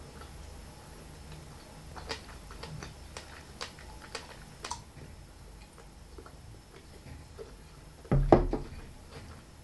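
Someone eating fresh fruit with a fork: quiet chewing and a series of light clicks, with a louder short sound about eight seconds in.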